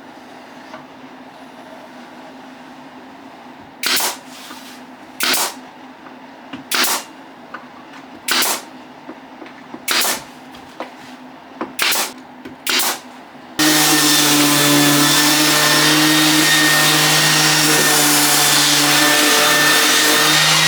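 Pneumatic pin nailer firing about eight times, roughly one shot every second and a half, pinning the plywood base onto the toolbox. About two-thirds of the way through, a loud steady sound with several held tones cuts in abruptly and carries on.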